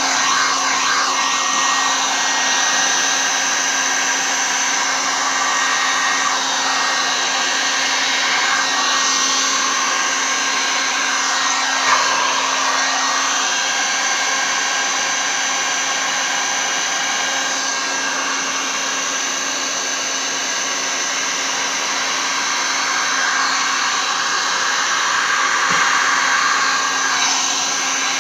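Electric heat gun running steadily, its fan blowing hot air with a constant hum over wet resin to push and spread it across the surface.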